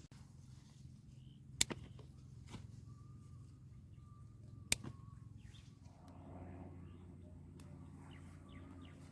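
Two sharp knocks about three seconds apart over a low steady hum, with a faint thin chirping note in between.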